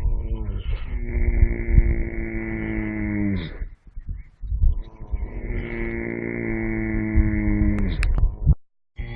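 Horse snoring: long, droning snores, each holding one pitch for about three seconds before sliding down and stopping, with a short pause between. The sound cuts out abruptly for a moment near the end.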